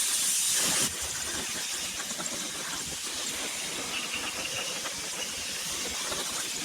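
Compressed-air paint spray gun hissing as it sprays paint. The hiss is louder for about the first second, then carries on steadily.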